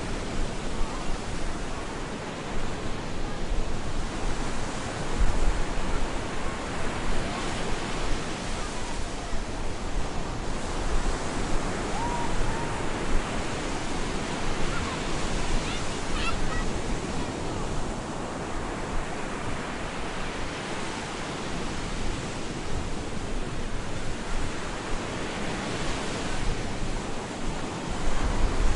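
Stormy sea surf: waves breaking and washing up the beach in a continuous roar of water, swelling and easing every few seconds.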